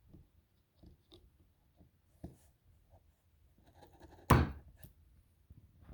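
Cardboard product box being opened and handled: scattered faint clicks and rubbing, with one louder, sharp sound about four seconds in.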